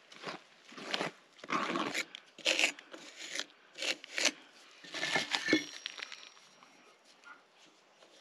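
Wet refractory cement mortar being scooped and worked by hand and bricks being bedded into it: a string of short, rough scrapes, with a sharper knock about two-thirds of the way in.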